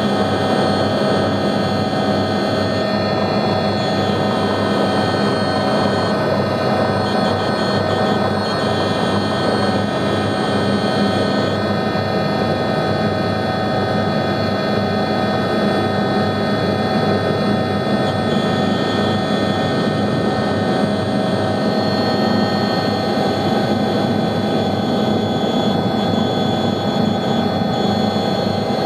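Cabin noise of an Agusta A109E Power twin-turbine helicopter during takeoff: a steady turbine whine with several high tones over the rotor's noise.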